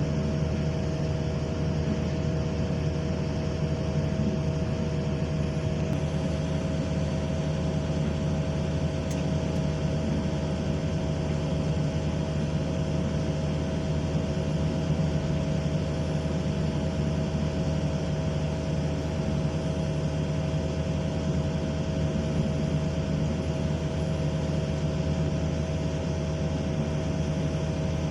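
Excavator's diesel engine running steadily: a constant low drone with a steady hum, unchanging throughout.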